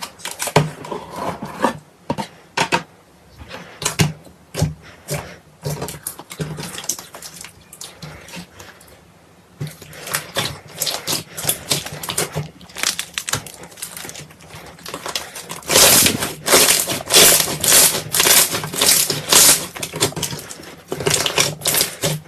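Slime being squeezed and worked by hand, making rapid sticky clicks and pops that grow busier and louder in the last third.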